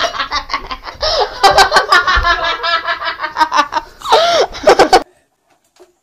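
People laughing hard in a small room, with several sharp knocks of movement among the laughter. The laughter cuts off suddenly about five seconds in.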